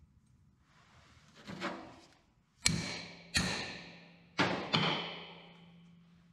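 Steel striking steel at the anvil: four sharp, ringing metal clanks, the last two close together, each ringing on for about a second.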